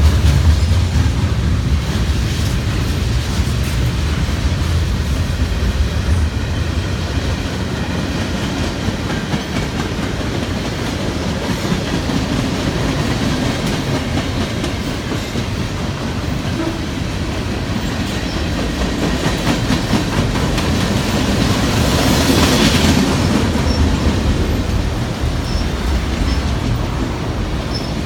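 Long CN freight train's cars rolling past, wheels clattering over the rail joints with a steady rumble. A brief louder rush comes about three-quarters of the way through.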